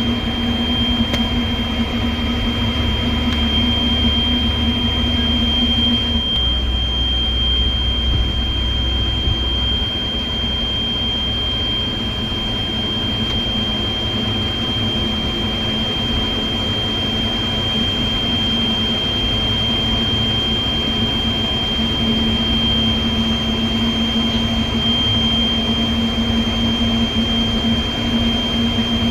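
JCB 205 excavator's diesel engine running steadily, with a constant high-pitched whine over it. A lower hum drops out about six seconds in and returns in the last few seconds.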